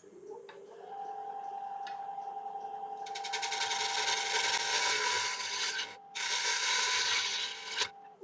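A wood lathe motor starts and hums steadily, rising slightly in pitch as it comes up to speed. From about three seconds in, a turning tool cuts the spinning rim of a dry yew bowl blank with a loud, continuous scraping, truing up the rim. The tool lifts off briefly about six seconds in and stops cutting just before the end.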